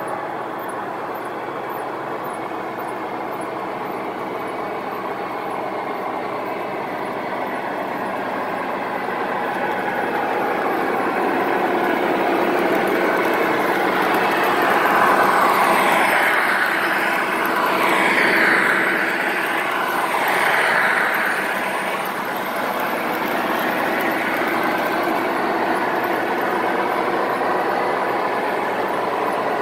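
O-scale model train of three MTH Premier GE AC6000 diesel locomotives running on three-rail track: the locomotives' onboard diesel engine sound and the wheels rolling on the rails. It grows louder from about ten seconds in and is loudest as the locomotives pass, then settles into a steady rolling sound as the auto-rack cars go by.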